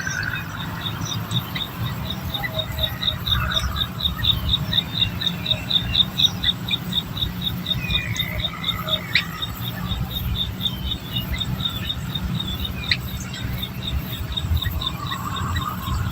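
A cricket chirping in a fast, even pulse of high notes, about four or five a second, fading out about ten seconds in, over a steady low rumble.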